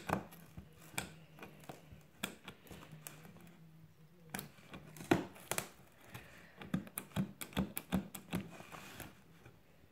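Scissors being worked under plastic packing strapping on a cardboard box: irregular light clicks and taps, with a quicker run of them near the end.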